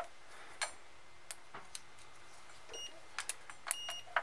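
Multimeter continuity beeper giving short high beeps, one brief and one slightly longer in the second half, as test probes touch the receiver's 10-amp fuses, among light clicks and taps of the probes. The beeps signal continuity: the fuses test good.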